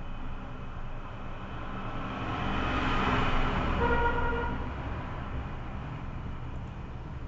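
Background traffic: a vehicle passes, swelling and fading over a few seconds, with a short horn toot about four seconds in, over a steady low hum.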